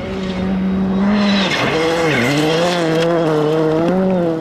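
Rally car engine running hard at high revs on a gravel stage. Its note dips about halfway through and climbs back, over the hiss of gravel sprayed by the tyres.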